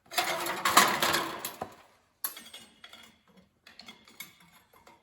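Metal clattering and scraping for about two seconds, then a run of lighter metallic clicks and clinks as the hot steel piece and tools are handled.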